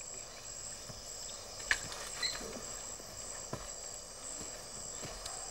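Steady high-pitched chorus of rainforest insects, with a few sharp knocks, the loudest a little under two seconds in.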